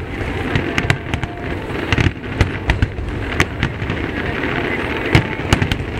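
Aerial fireworks shells bursting overhead in a rapid, irregular string of sharp bangs, several a second.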